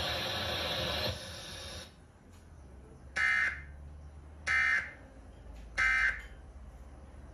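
A hiss for about two seconds that cuts off. Then three short electronic data bursts of the Emergency Alert System end-of-message code, each about half a second long and a little over a second apart, closing the EAS test broadcast.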